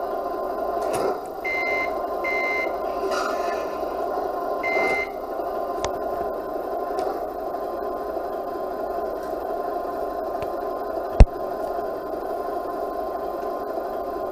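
A small speaker gives a steady droning hum, with three short, high electronic beeps in the first five seconds. The RC truck's sound module is the likely source. One sharp click about eleven seconds in is the loudest sound.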